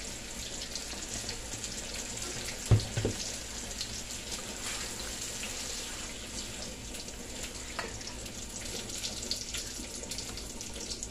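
Sausage and shrimp sizzling in a wok, a steady crackling hiss, as tomato sauce is stirred in with a spatula. A single thump about three seconds in.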